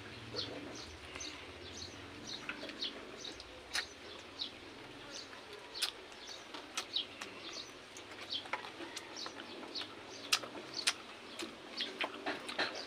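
Quiet mouth sounds of people eating fried squid and rice by hand: irregular little smacks and clicks of chewing, with a few sharper clicks among them.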